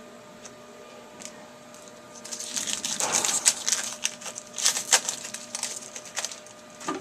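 Crackly rustling and crinkling of trading-card packs and cards being handled during a box break, in quick irregular crinkles from about two seconds in until near the end.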